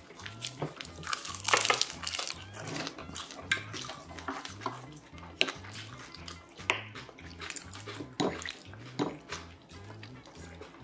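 Wooden spoon scooping through soybean stew in a small ceramic bowl: wet liquid sounds and short clicks of spoon and dishes, with chewing near the end. Soft background music with a repeating low beat runs underneath.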